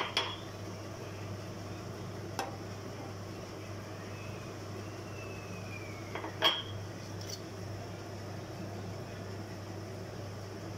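A few sharp clinks of kitchenware against a frying pan as eggs are added one by one to the vegetable mixture, the loudest cluster about six and a half seconds in, over a steady low hum.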